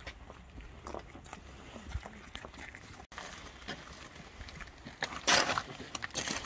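Scattered shuffling, small knocks and rustling as men handle the lowering straps under a coffin at a graveside, with one brief loud rustle a little after five seconds in.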